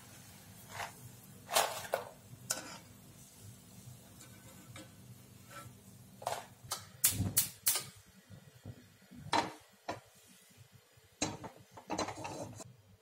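Metal utensils clinking and knocking against an aluminium kadai, about a dozen sharp knocks spread irregularly, with a quick run of three a little past the middle. A low steady hum underneath drops away about halfway.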